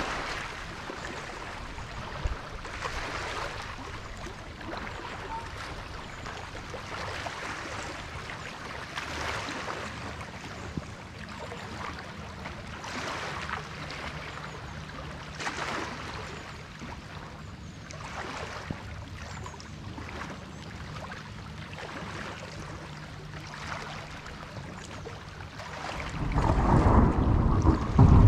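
Rain and wind making a steady hiss that swells every two or three seconds. Near the end a loud, low rumble of thunder rolls in.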